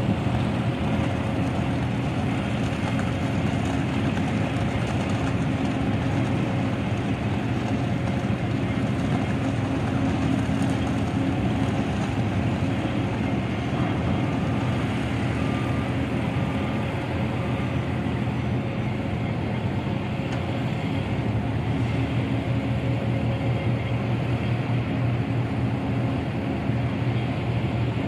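Caterpillar backhoe loader's diesel engine running steadily under working load, a constant low hum as the loader lifts and carries concrete barriers.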